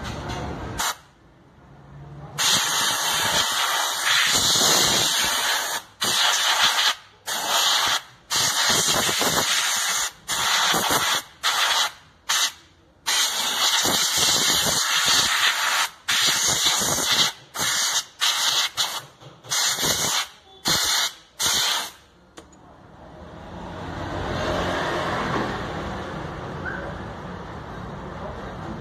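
Pressurised spray hissing onto drum brake shoes in a rapid run of bursts, each cut off sharply with brief pauses between, for about twenty seconds. After that only a softer, steady rushing noise remains.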